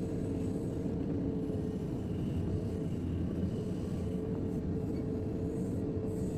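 JCB 3DX backhoe loader's diesel engine running steadily under work, a constant low rumble with a steady hum above it.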